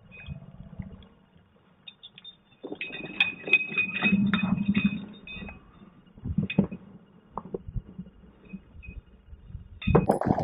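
A hooked bass being landed on a bass boat: a spell of rattling, clicking and splashing a few seconds in, then a few scattered knocks.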